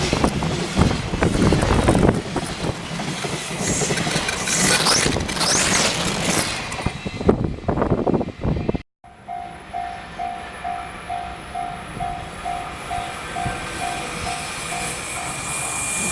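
Freight train passing over a level crossing, its wheels clattering and squealing. After a sudden cut about halfway, a Japanese level-crossing warning bell rings about twice a second, and the noise of an approaching train builds near the end.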